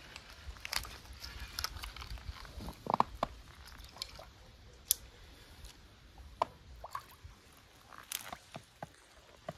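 Scattered small splashes, drips and clicks as a hooked crucian carp is played in and landed from the river, over a low rumble that fades about seven seconds in.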